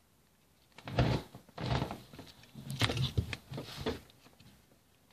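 Hands squeezing and stretching homemade slime close to the microphone: a run of short squelching, rubbing noises from about a second in to about four seconds in.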